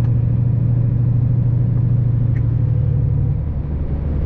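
A motor vehicle driving on a road: a steady, loud, low engine and road drone that drops lower in pitch about three and a half seconds in.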